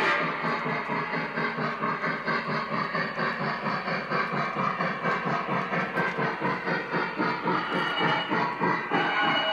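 Lionel O-gauge Milwaukee Road S3 steam locomotive running slowly, its onboard sound system giving a rapid, even steam chuffing.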